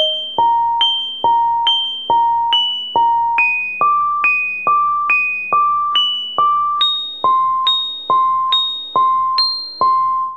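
A keyboard-tone ringtone melody. It plays single notes, each fading after it is struck, a little over two per second, and sounds each pitch four times before the melody steps to the next one.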